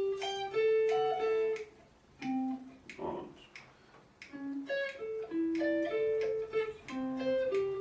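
Guitar playing a single-note melody, picked one note at a time, over a metronome click made of finger-snap samples. The playing thins out briefly about two seconds in and picks up again about four seconds in.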